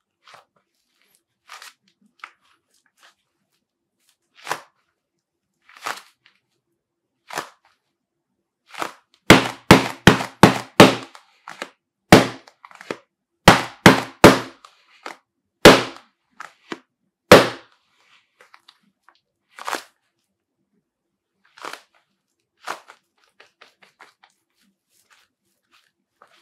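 HO Soccer Legend II goalkeeper gloves with latex-foam palms being clapped together: over a dozen loud, sharp claps in quick succession from about a third of the way in to two-thirds through. Softer, scattered pats and rustles of the gloves come before and after the claps.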